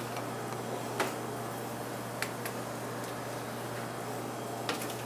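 Steady restaurant-kitchen background at the stove: a low hum under a hiss of cooking, broken by a few light clicks and taps about a second in, twice a little after two seconds, and once near the end.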